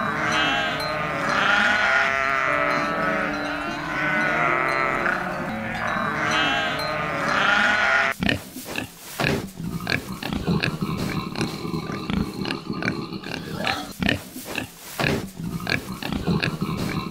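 Several sheep bleating, many wavering baas overlapping, for about the first eight seconds; then it cuts abruptly to pigs grunting in short, irregular grunts.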